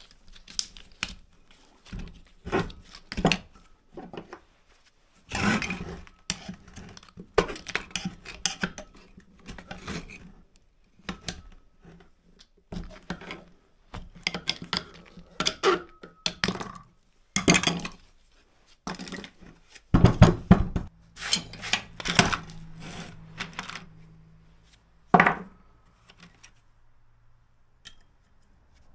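Irregular clinks, knocks and clatter of metal and plastic parts and hand tools as a water pump's electric motor is taken apart by hand, its plastic fan and cover pried off and set down. A faint low hum runs under the last few seconds.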